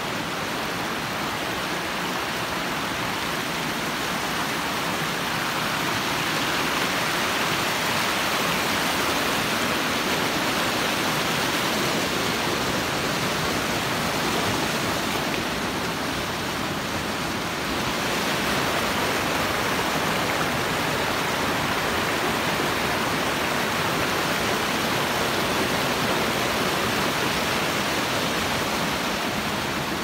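Mountain stream rushing and splashing over boulders in a steady roar of white water, a little quieter in the middle of the stretch.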